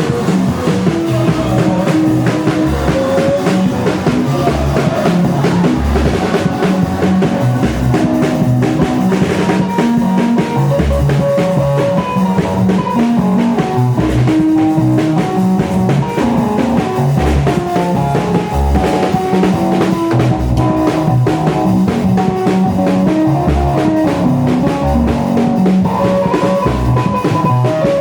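Band music with a drum kit and guitar: a steady beat with rimshots and a walking bass line under a repeating melody.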